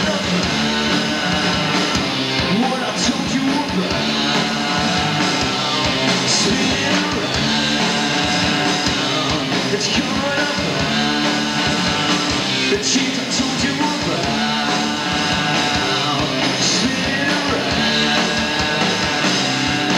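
Live rock band playing with a singer: drums, electric guitar and vocals, loud and continuous.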